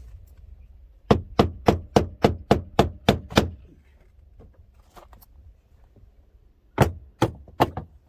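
Sharp knocks against the truck's loose plastic interior door handle: nine quick raps about three a second, then three more near the end.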